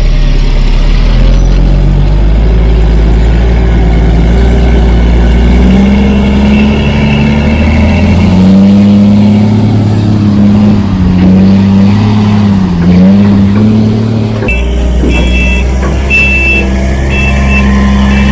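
Heavy truck's diesel engine running loudly, its speed rising and falling in the middle. Near the end a reversing alarm starts beeping repeatedly over the engine.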